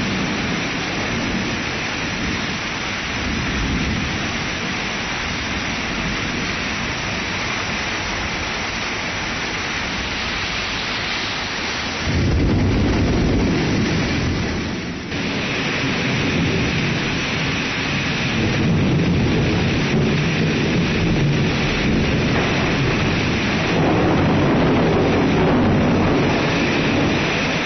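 Thunderstorm: steady rain hiss, and about twelve seconds in a low thunder rumble breaks in suddenly and rolls on to the end, with a brief lull a few seconds later.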